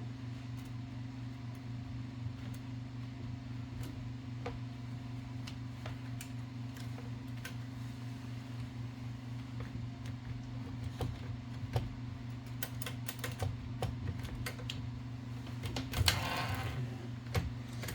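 Scattered small metallic clicks and taps from typewriter carriage parts and bearings being handled and fitted. They grow busier after about eleven seconds, with a brief scraping rattle near the end, over a steady low hum.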